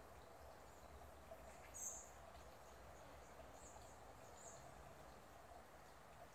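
Near-silent outdoor ambience with a few brief, faint high chirps, the clearest about two seconds in.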